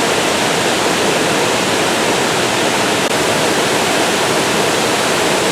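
Waterfall rushing, a loud, steady, unbroken wash of falling water.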